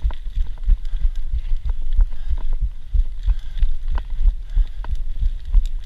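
Mountain bike jolting over a rough dirt forest singletrack, heard through the rider's POV camera: a rapid, irregular run of low thuds and knocks as bike and camera shake over the bumps, with sharp little rattles and clicks mixed in.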